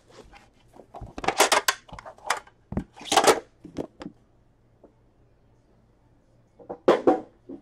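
Packaging being opened by hand: a run of short crinkling, tearing and rustling sounds from wrapper and cardboard as a sealed box of hockey cards is unwrapped, then a pause and one more short rustle near the end.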